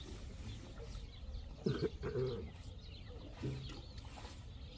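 Short, low calls from a farm animal: two close together a little under two seconds in, and a weaker third about three and a half seconds in.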